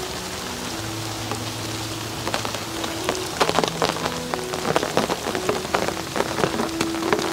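Autumn rain falling on garden plants. From about two seconds in, many individual raindrops strike close by, sharp and uneven, over the steady hiss of the rain.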